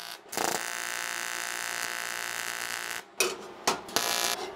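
AC TIG welding arc buzzing while tacking aluminium plates together at an outside corner. One steady buzz lasts about two and a half seconds and cuts off, then a shorter tack burns near the end.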